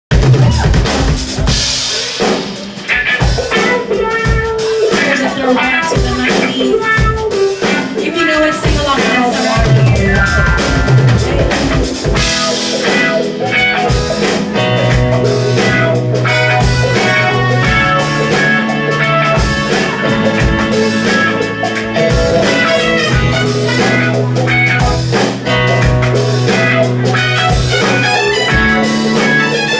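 Background music with a drum kit playing a steady beat and sustained instrumental notes.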